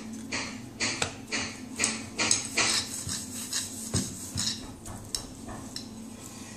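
Rolling pin rolling out a stuffed paratha on a steel plate, knocking and clattering against the plate about twice a second, the knocks thinning out near the end.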